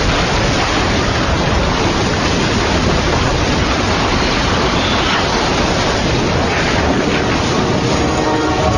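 A loud, steady rushing roar of noise with no clear tones, holding even throughout.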